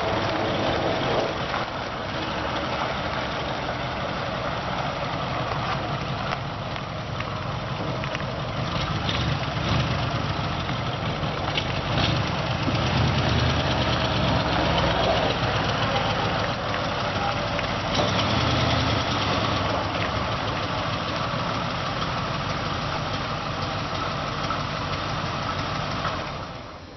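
Freshly rebuilt flathead V8 of a 1936 Ford pickup running steadily, its note swelling and easing a little.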